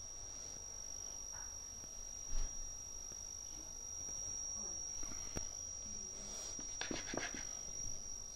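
Steady high-pitched trill of crickets. Over it come a few soft clicks and taps from a knife cutting ripe papaya on a chopping board, bunched together about seven seconds in.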